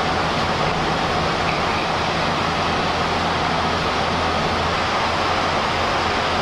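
Steady flight-deck noise of a Boeing 737-400 in the climb: an even rush of air with a low, steady hum beneath it.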